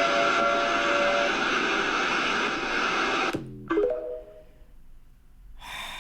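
A dense, steady rushing noise with a few faint held tones that cuts off abruptly about three seconds in. A few short musical notes follow, then a quieter stretch.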